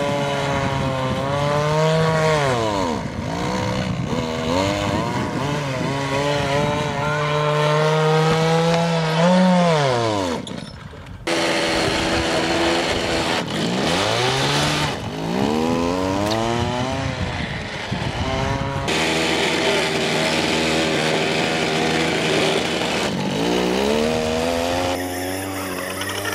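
Small single-cylinder go-kart engine revving as the kart drives around: its pitch falls and climbs back up again and again, with abrupt breaks about eleven and nineteen seconds in.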